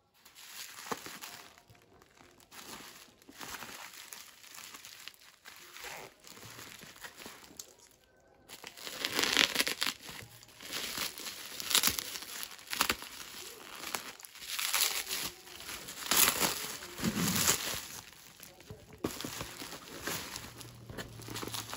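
Black plastic bubble-wrap parcel packaging crinkling and crackling as it is handled, cut and pulled open, in irregular bursts that grow louder about a third of the way in.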